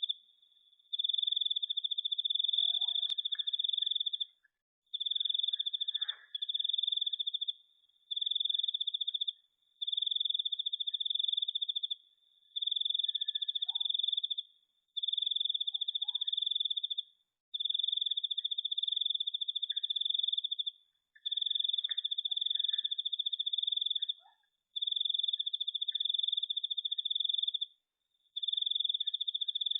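Insect trilling: one steady high-pitched tone in long trills of two to three seconds each, broken by short pauses, over and over.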